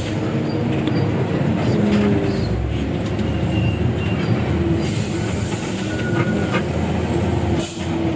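Inside a moving Hino RG bus: the diesel engine running under steady road noise, with the body rattling and clicking.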